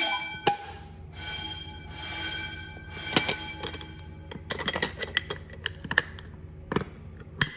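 Fire alarm bell ringing. It cuts off right at the start, then rings again more faintly for about a second and a half, and is followed by a run of light clicks and clinks over a steady low hum.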